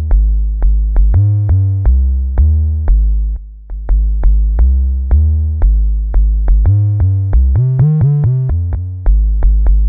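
Bass preset from Steinberg's Backbone drum re-synthesizer played as a bass line: a run of short, low synth bass notes, each starting with a click. The pitch moves about, with a quicker run of notes near the end.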